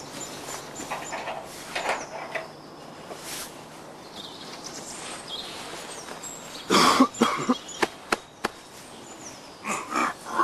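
Loud, animal-like growls and grunts come in a cluster about two-thirds of the way in and again near the end, with a few sharp knocks between them. Faint birdsong runs underneath.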